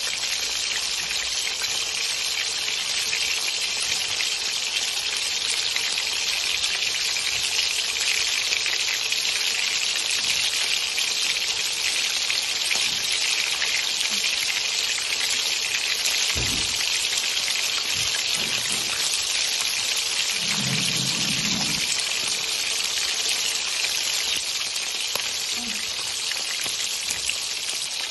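Hot oil sizzling steadily in a pan as fish steaks shallow-fry, a constant crackling hiss.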